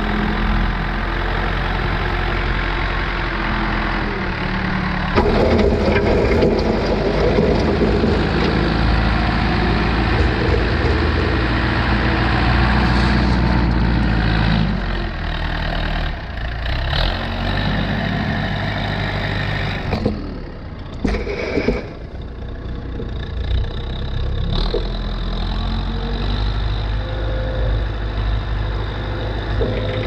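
1979 Allis-Chalmers 715B backhoe's diesel engine running. It revs up about five seconds in and holds higher for about ten seconds, then drops back to a lower, steadier run, with a few knocks about two-thirds of the way through.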